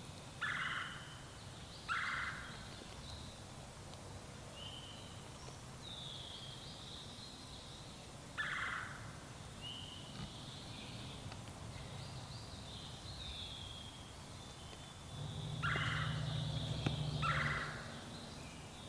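Wild turkey tom gobbling five times: two gobbles close together, one about halfway through, and two more near the end. Songbirds chirp faintly in between.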